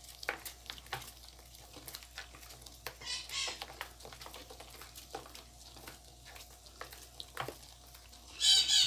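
Spoon stirring a thick homemade soap paste of oil and caustic soda in a plastic basin, with scattered light clicks and scrapes of the spoon against the bowl; the paste is nearly at its setting point. A bird chirps briefly about three seconds in and again, louder, near the end.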